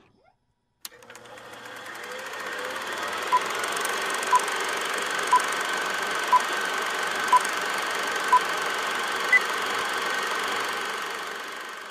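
Film-leader countdown sound effect: a film projector's steady whirr and clatter swells up after about a second, with a short beep once a second, six times, then one higher beep, before the clatter fades out near the end.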